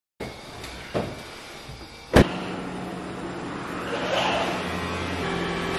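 A car door shuts with a sharp thud about two seconds in, after a lighter click. A steady low hum follows from the car, whose lights are on.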